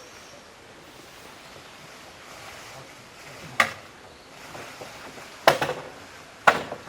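Three sharp knocks, the first about halfway in and two close together near the end, over a steady outdoor hiss.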